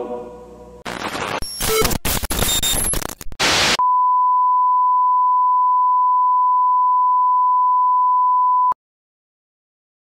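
Sign-off music fades out. About a second in comes a few seconds of harsh, crackling TV-style static, then a steady 1 kHz colour-bar test tone marking the end of a broadcast day. The tone cuts off abruptly near the end, leaving silence.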